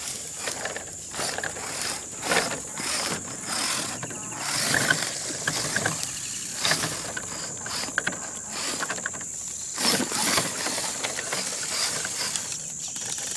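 4x4 RC rock crawler's motor and drivetrain whirring in irregular bursts as it is driven over rough ground, with a steady high-pitched whine underneath.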